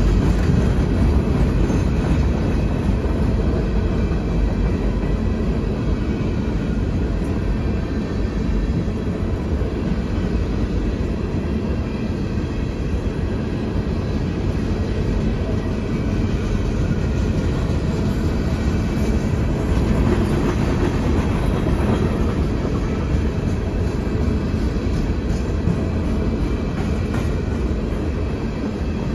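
Loaded coal train's hopper cars rolling steadily past, a continuous rumble of steel wheels on the rails.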